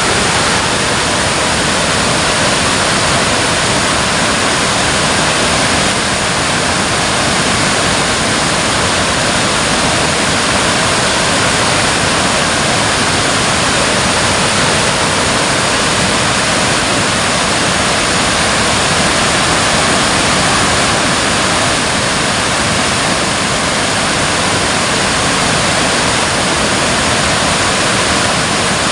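Water pouring over a dam with a steady, loud rush.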